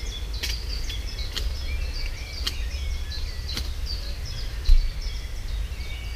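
Songbirds chirping continuously, with a sharp scratchy strike about once a second as a wood gas stove is lit, and a low thump just before five seconds in.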